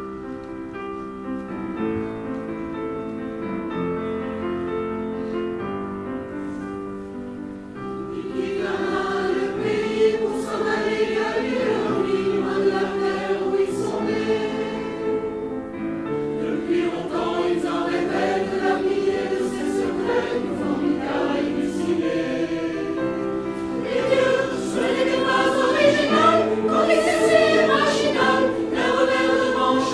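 Mixed choir of men's and women's voices singing in harmony: sustained chords that step from one note to the next for the first eight seconds or so, then the choir swells louder into a moving melody.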